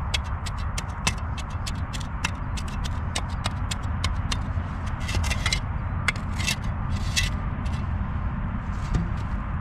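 Irregular sharp clicks and taps, several a second, over a steady low rumble, with denser clusters of taps about two-thirds of the way through.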